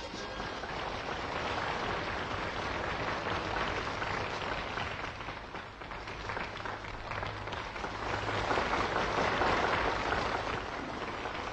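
Large crowd applauding steadily, the clapping swelling a little about eight seconds in.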